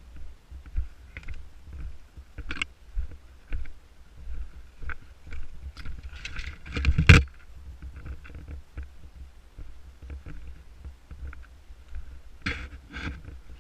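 Rustling and crunching of a person moving through forest undergrowth, in irregular bursts with the loudest about seven seconds in and two more near the end, over a steady low rumble on the microphone.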